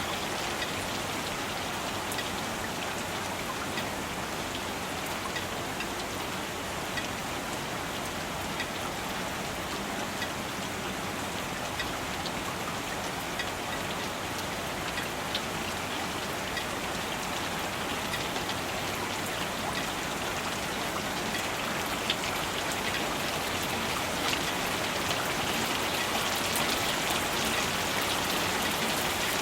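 Steady rain falling, a dense even hiss dotted with the small ticks of individual drops striking surfaces; it grows a little heavier in the last few seconds.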